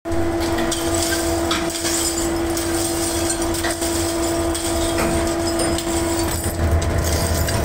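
Steady machinery hum with a constant whine from a metal-casting workshop, broken by scattered clinks and knocks of scrap metal being poked into the melting furnace with tongs.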